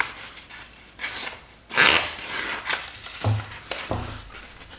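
Knife blade drawn along the stone of a Work Sharp guided sharpening system: several short scraping strokes, each about half a second, with a couple of dull knocks in the second half.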